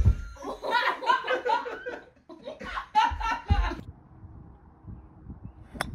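Loud laughter, broken by a couple of dull thumps. After it comes a quiet stretch, then one sharp click near the end.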